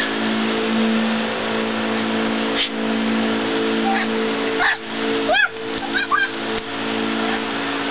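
A steady machine drone, like an engine running, holds one pitch throughout. Between about five and six seconds in, a few short squeaky calls rise and fall in pitch.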